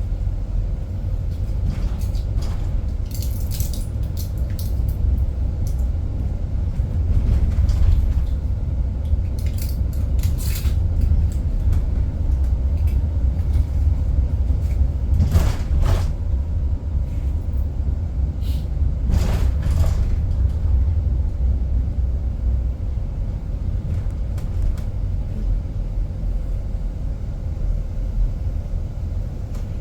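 Cabin rumble of a moving driverless bus: steady low road and running noise, with a few short knocks or rattles, the strongest about halfway through.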